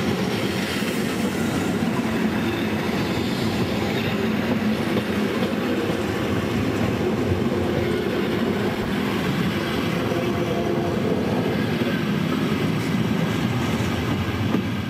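Ferrovie Nord Milano passenger train of coaches running past at close range, a steady rumble of wheels on rails with some clatter over the rail joints. The sound drops away suddenly at the very end.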